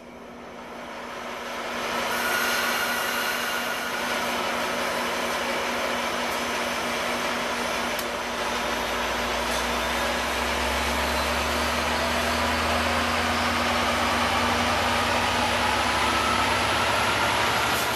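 Amtrak F59PHI diesel-electric locomotive pulling out and rolling slowly past: steady engine and running noise that builds over the first couple of seconds, with a deeper engine rumble swelling from about halfway through as it draws away under power.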